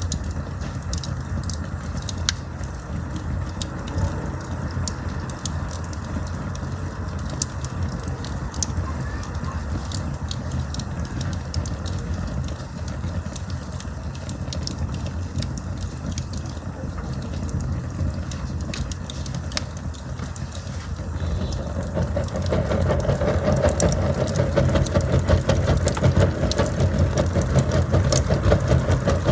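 Campfire burning: a steady low rumble of flame with scattered sharp crackles and pops. About three-quarters of the way in it grows louder, with a denser rushing sound.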